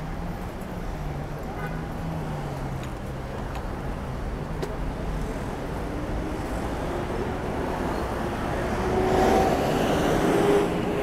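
City street traffic heard from a moving bicycle: a steady road noise with engine hum. In the second half another vehicle's engine grows louder as it passes close, peaking near the end.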